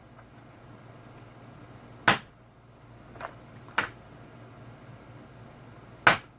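Sharp clicks and knocks of tools and parts being handled on a workbench during an amplifier board repair: four short strikes, the loudest about two seconds in and near the end, over a faint steady low hum.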